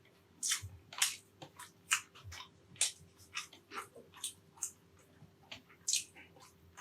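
Close-miked eating sounds of a person chewing beef caldereta: irregular wet smacks and mouth clicks, several a second.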